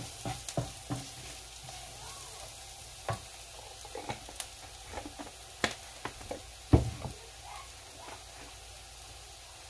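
Diced onion sizzling in avocado oil in a nonstick frying pan, with a wooden spatula stirring and scraping at first, then scattered pops and ticks. One louder knock about two-thirds of the way through.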